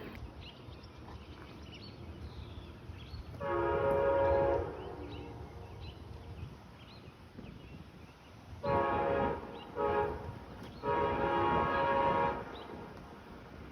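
Locomotive multi-chime air horn sounding long, long, short, long, the standard grade-crossing signal, over the low rumble of the train.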